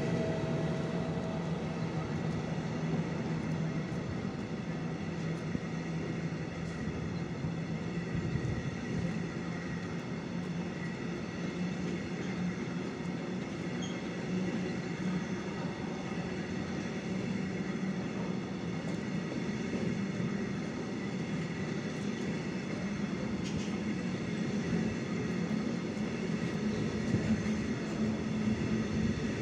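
A long train of empty two-deck car-carrier freight wagons rolling steadily past on the track. The wheels on the rails make a continuous, even noise that holds at the same level throughout.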